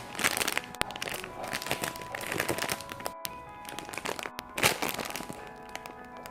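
Background music over irregular crinkling of plastic packaging being handled, with a few sharp clicks.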